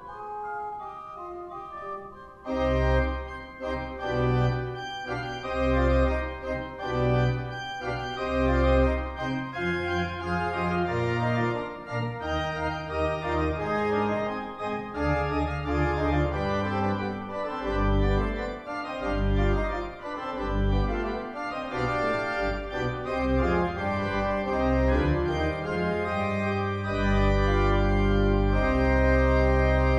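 Sampled pipe organ (Hauptwerk's Cappel organ set) played from a Viscount Chorale 3 console in a fast, busy Baroque Allegro. Deep bass notes come in about two and a half seconds in, and the music settles into long held chords near the end.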